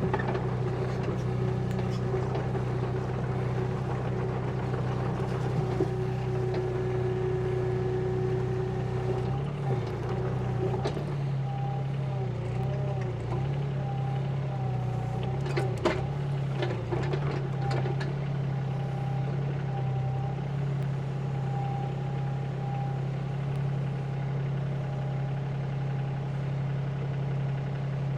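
An engine running steadily, its speed dipping and recovering a few times midway before settling back to an even run.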